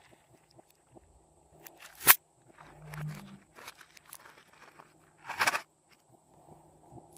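Glossy slime being squished and stretched by hand, with scattered sticky pops and clicks: one sharp loud pop about two seconds in and a longer wet squish about five seconds in.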